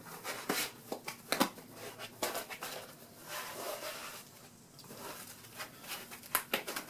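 A foam pool noodle, split down its side, being pressed and worked onto the rim of a glass microwave turntable plate: irregular small clicks, taps and rustles of foam against glass and hands.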